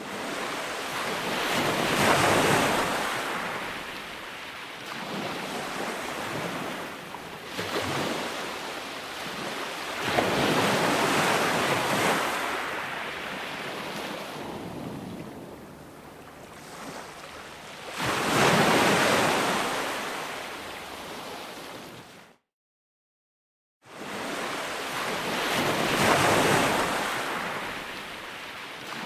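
Ocean surf: waves breaking and washing in, swelling and fading in slow surges every few seconds. About three-quarters of the way through the sound drops out completely for about a second and a half, then the waves resume.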